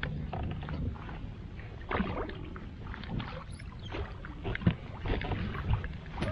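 Irregular clicks and knocks from fishing gear and the kayak as a rainbow trout is reeled in and netted from the kayak, over a low steady rumble.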